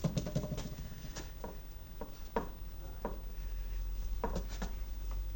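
Scuffling of a man play-fighting with a cat: irregular light taps and knocks, several a second at times, over a steady low hum.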